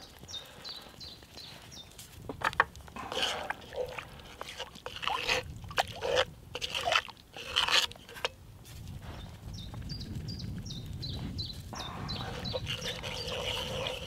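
Wooden spoon stirring gravy granules into wine and stock in a Petromax FT4.5 cast iron Dutch oven, scraping and swishing in irregular bursts. A run of short, high, falling chirps sounds near the start and again in the second half.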